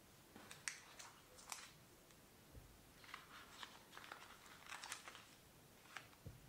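Faint handling of a cardboard smartphone box and its paper and plastic inserts: scattered soft clicks and taps, with a spell of light rustling and crinkling around the middle.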